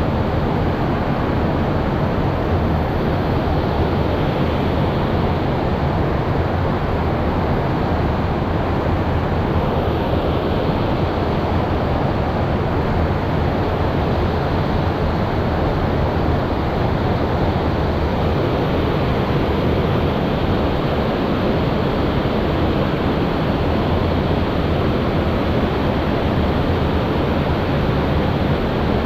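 Loud, steady rush of river water pouring over a lock-and-dam spillway, an unbroken wash of noise with no change in level.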